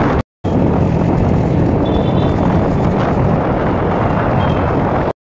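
Steady rush of wind and road noise from a moving motorcycle, with its engine running underneath. The sound cuts out completely for a moment shortly after the start and again just before the end.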